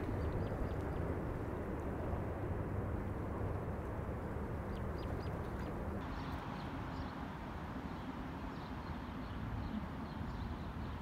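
Outdoor city ambience: a steady low rumble of distant traffic, with small birds chirping faintly now and then. The rumble changes character about six seconds in.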